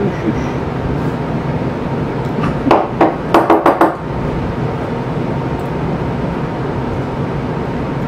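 A quick run of six or seven sharp clicks and taps, about three to four seconds in, as the small parts of a pen are handled, over a steady hum.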